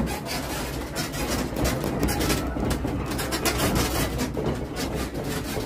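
A room rattling and creaking in strong earthquake shaking: a dense clatter of walls, fittings and loose objects over a steady low rumble.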